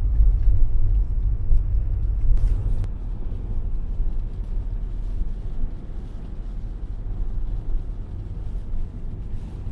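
Ford Transit Custom camper van driving, with a steady low engine and road rumble that eases off after about three seconds.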